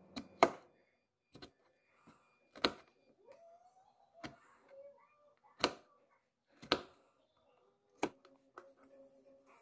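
Kitchen knife slicing strawberries in a plastic bowl, the blade tapping against the bowl's bottom with a sharp click every second or so; the loudest comes about half a second in.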